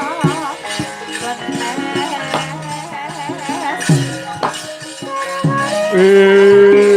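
Javanese gamelan music accompanying a wayang kulit performance: repeated sharp drum and metal strikes under a wavering melodic line, with strong held bronze tones coming in about six seconds in.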